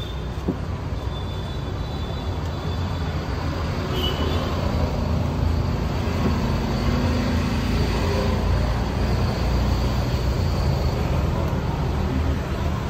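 Street traffic noise: a steady low rumble of passing vehicles that grows louder a few seconds in.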